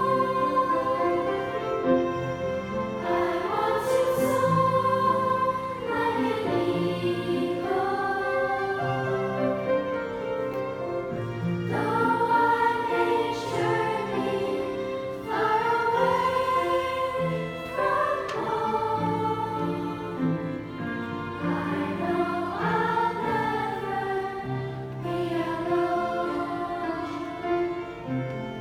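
Music with a choir singing slow, sustained phrases over instrumental accompaniment.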